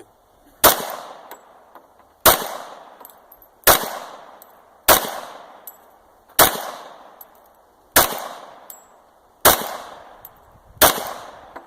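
A .45 pistol fired eight times at a steady pace, a shot about every second and a half, each shot's report ringing out for about a second.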